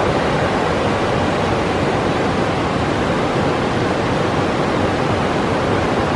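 Fast mountain stream rushing over boulders: a loud, steady rush of white water.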